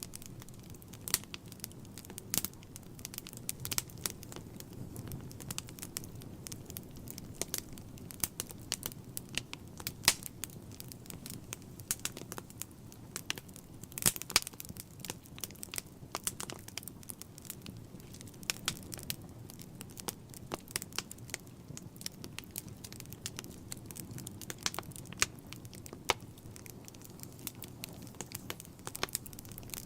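Wood fire burning in a fireplace: logs crackling and popping at irregular intervals, a few pops louder than the rest, over the low, steady sound of the flames.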